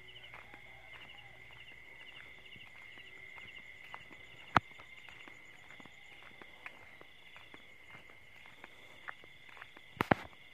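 Crickets and other insects trilling in a steady chorus, a continuous high tone with a pulsing chirp over it. Soft footsteps tick along under it, with one sharp click about four and a half seconds in and a louder double knock near the end.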